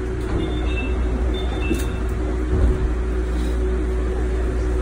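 Disney Resort Line monorail running on its elevated track, heard from inside the front car: a steady low rumble under a constant hum, with one low bump about halfway through.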